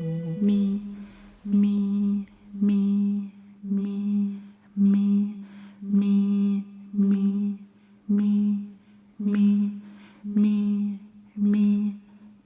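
A voice sounding the same short, steady note over and over, about once a second, roughly eleven times, as part of a sound artwork. A held musical chord dies away about half a second in.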